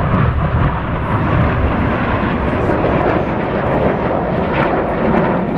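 Jet noise from BAE Hawk T1 aerobatic jets flying over the airfield: a steady, low rumble from their turbofan engines.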